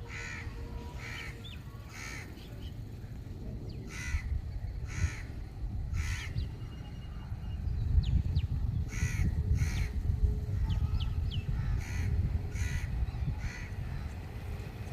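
A bird calling over and over: short calls in runs of two or three, over a steady low rumble that swells about halfway through.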